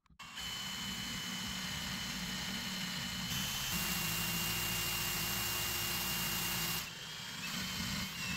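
Electric drill boring a hole through cork underlay and plywood baseboard, the motor running steadily with a thin whine. It gets louder about three seconds in and eases off again about seven seconds in.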